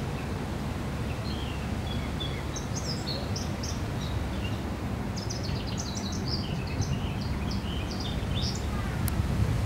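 A small bird chirping and twittering in quick, high notes over a steady low rumble of outdoor background noise.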